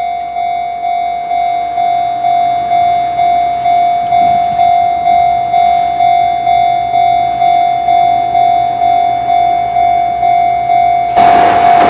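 Japanese railroad crossing alarm bell ringing its steady 'kan-kan', a single ringing tone struck a little over twice a second. About eleven seconds in, the loud rushing noise of a passing train comes in over it.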